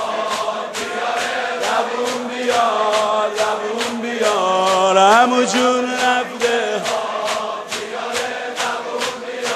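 Crowd of male mourners chanting a Persian noha lament in unison over rhythmic chest-beating (sineh-zani), about two hand slaps a second. Near the middle the chanted line swells and glides up in pitch.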